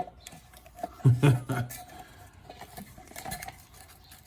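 Light clinks, clicks and rattles of the door mirror assembly and its small parts being handled, with a sharp click at the start and a brief low murmur from a man's voice about a second in.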